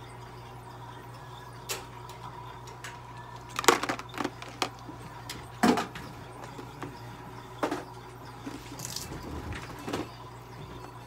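Scattered short clicks and knocks from a cat being held and handled on a metal exam table, the loudest about four and six seconds in, over a steady hum of clinic equipment.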